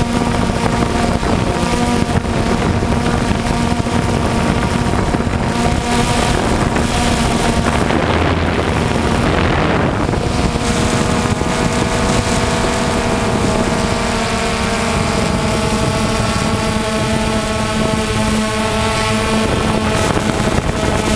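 An engine running steadily, with wind noise on the microphone; about ten seconds in the note briefly blurs and settles at a slightly different pitch.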